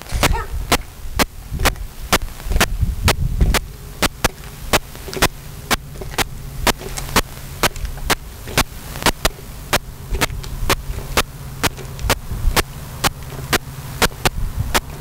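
Drum tapping a steady marching cadence, about two sharp beats a second, over a low steady hum.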